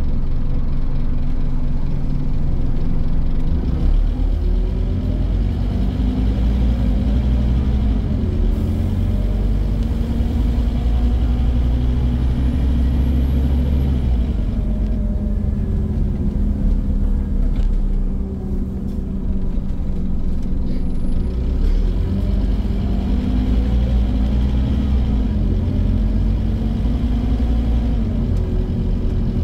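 Scania N230 bus's diesel engine heard from on board while driving. The engine note rises and falls several times as the bus accelerates and changes gear, over a constant low road rumble.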